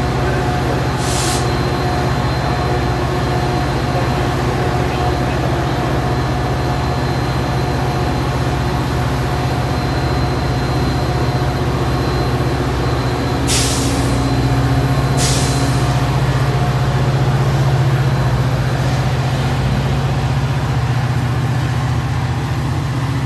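Metra F40PH diesel-electric locomotive's engine running steadily and getting louder as it throttles up to pull the train out. Short sharp air hisses from the air brakes come about a second in and twice more about two-thirds of the way through.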